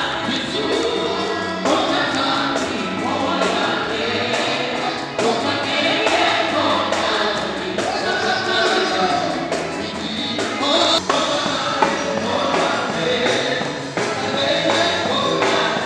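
A church congregation singing a gospel worship song together over music with a steady beat.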